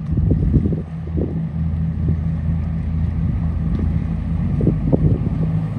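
Small passenger ferry's engine running with a steady low drone, with wind gusting on the microphone.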